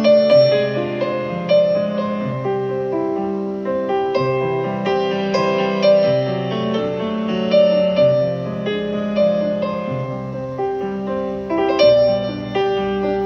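Background piano music: slow notes and chords, each struck and left to ring.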